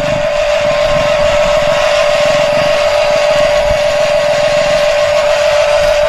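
Toy remote-control road roller running over soil, with a steady high whine and a grinding noise under it throughout.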